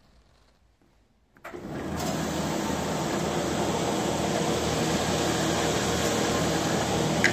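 Fritsch Rollfix 700 reversible dough sheeter switched on: its motor starts up about a second and a half in, then runs steadily with a low hum.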